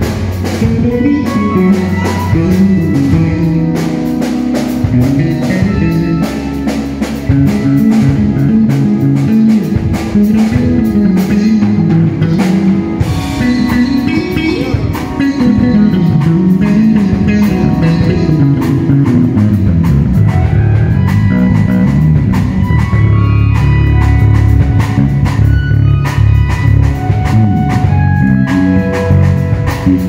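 Six-string electric bass guitar playing busy, moving melodic runs, with keyboard and a drum kit playing along.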